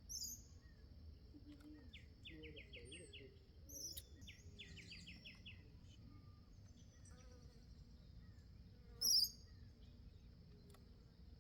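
Small birds chirping at a feeder: two quick trills of about six notes each in the first half and a loud, sharp high chirp about three-quarters through, over a steady high insect buzz.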